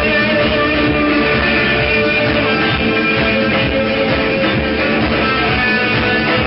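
Rock band playing live and loud, with strummed electric guitars over a steady beat, heard from within the crowd at a club gig.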